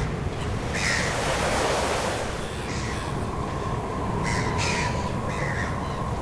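Birds giving short harsh calls, about four in all: one about a second in, one around two seconds, and two more after four seconds. Beneath them runs a steady rushing noise with a thin steady tone.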